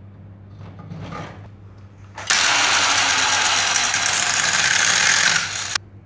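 Angle grinder with a cut-off disc cutting into a steel bar held in a vise: a loud, harsh grinding that starts suddenly about two seconds in and cuts off abruptly near the end. A low steady hum lies under it throughout.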